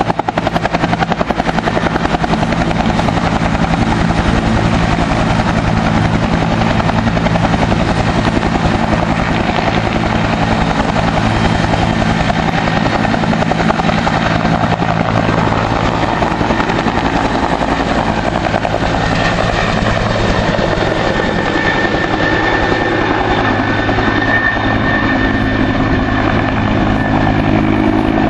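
Firefighting helicopter running close by, loud: a steady, rapid rotor chop over the engine's drone, with a higher whine coming in a little past halfway.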